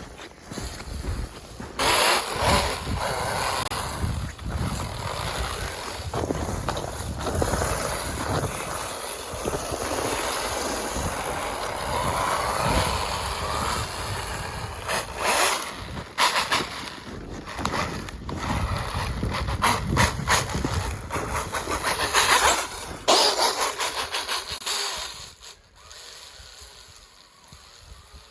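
Strider G4 RC snowmobile's Tekin 2250kv brushless electric motor running under throttle, its whine rising and falling as it is driven, with sudden loud bursts. It goes much quieter in the last few seconds.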